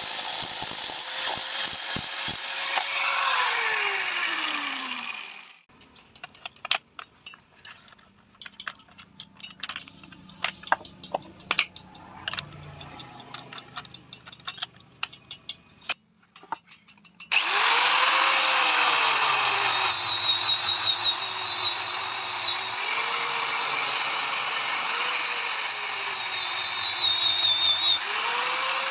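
A power tool working metal runs, winds down with a falling pitch and stops about five seconds in. Scattered light taps and clicks follow for about twelve seconds. Then the tool starts again and runs steadily, its pitch wavering as it works.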